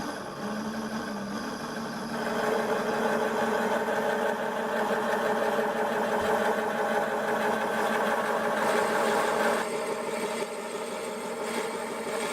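Taig benchtop lathe running with a steady motor hum, getting louder about two seconds in and shifting slightly near the end.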